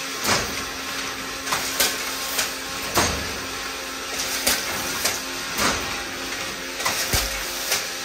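Automatic crimped wire mesh weaving machine running: sharp knocks repeating irregularly, about one or two a second, over a steady hum.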